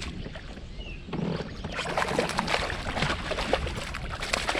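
Water splashing and slapping, thicker from about a second in, as a hooked smallmouth bass thrashes at the surface.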